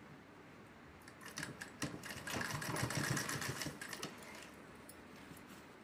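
Sewing machine stitching a short seam along a folded fabric edge, running in a fast even rattle from about a second in and stopping about four seconds in.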